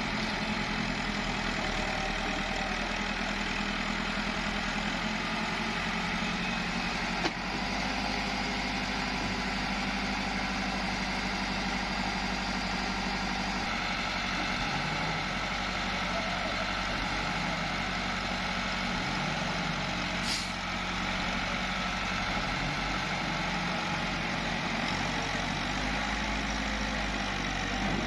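Massey Ferguson tractor's diesel engine running hard under load with a wheeled excavator alongside, the engine note rising and falling several times midway, as the stuck tractor strains to pull its loaded trailer out of soft ground. One sharp click about seven seconds in.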